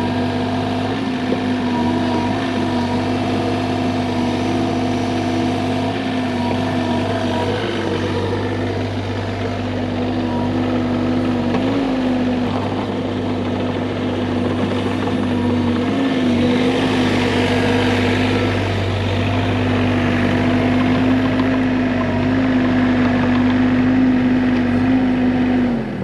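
Bobcat E35 compact excavator's diesel engine running steadily, its pitch wavering briefly a few times.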